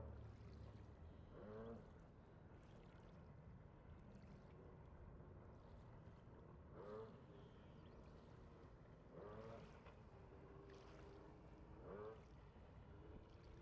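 Faint, steady drone of a stand-up jet ski's engine running fast across the water, heard from a distance. A few short sounds that rise and fall in pitch come on top every few seconds.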